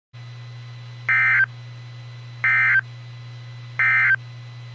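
Emergency Alert System end-of-message (EOM) data signal: three short bursts of two-pitch digital tones, about a second and a half apart, over a steady low hum. They mark the end of the alert.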